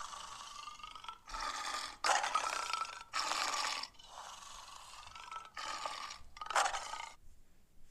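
Lion giving a series of short, throaty grunting roars, about half a second each, separated by brief pauses.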